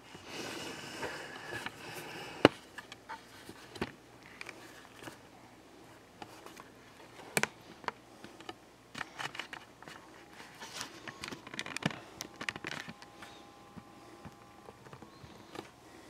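Quiet room with scattered faint clicks and taps. A faint steady tone comes in after about ten seconds.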